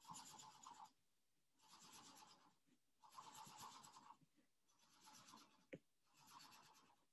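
Faint scratching of a marker tip on notebook paper, in about five short strokes one after another as dots are coloured in, with a single small click about three quarters of the way through.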